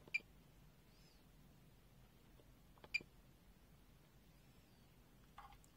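Fluke handheld multimeter giving two short beeps about three seconds apart as its front-panel buttons are pressed, switching the reading from frequency back to AC volts.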